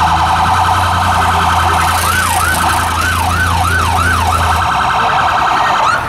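Electronic siren cycling through its tones: a fast warble, then a few slower rising-and-falling sweeps about two seconds in, then the fast warble again. A low steady hum underneath stops near the end.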